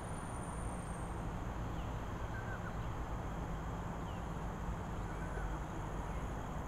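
Walking outdoors recorded on a camcorder's built-in microphone: a steady low rumble of wind and handling noise. A few faint bird chirps come through in the middle.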